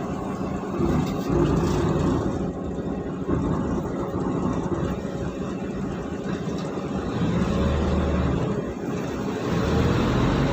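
Mercedes-Benz O530 Citaro bus engine running, a steady low drone that swells briefly in its lowest notes about three-quarters of the way in.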